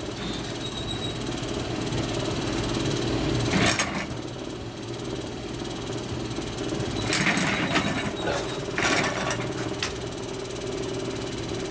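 Steady low rumble of a running motor, with a few short rustling bursts over it.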